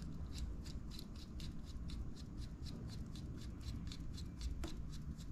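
Light, rapid clicking, about four or five ticks a second, as a threaded motorcycle gear-shift rod is turned by hand to set its length, with one sharper click near the end, over a low steady rumble.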